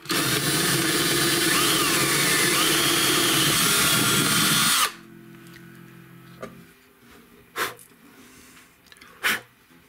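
Ryobi 18-volt cordless drill boring a bridge pin hole down through a guitar bridge. The motor runs at a steady whine that dips and rises in pitch briefly, then cuts off suddenly about five seconds in. Two short knocks follow near the end.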